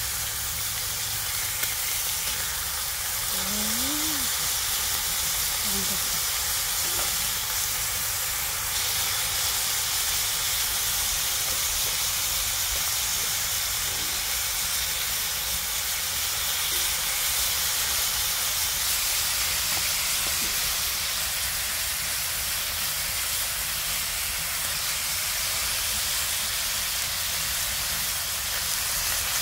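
Beef striploin searing in butter in a hot cast-iron skillet: a steady, even sizzle of fat and juices spitting in the pan.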